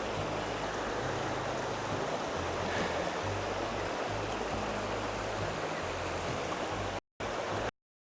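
Rushing water of a mountain stream, with background music carrying a slow, stepped bass line over it. Both cut off abruptly about seven seconds in, leaving silence.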